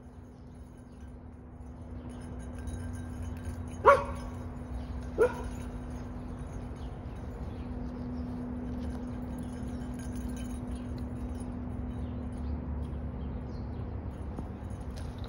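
A dog barks twice, two short sharp barks about four and five seconds in, over a faint steady low hum.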